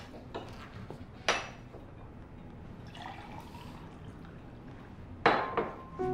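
A drink poured into a glass, with two sharp clinks of glass, the louder one near the end.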